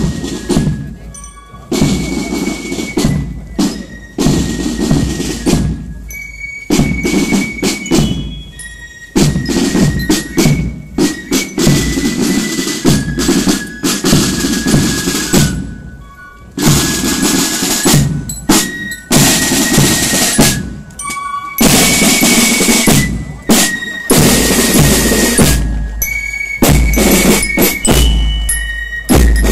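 Marching band passing in a street parade, led by its drum section: snare drums rolling and beating a march rhythm over a bass drum.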